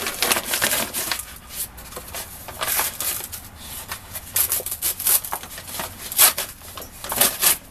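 Brown paper wrapping crinkling and tearing in irregular crackly bursts as it is pulled off a long wooden tool handle.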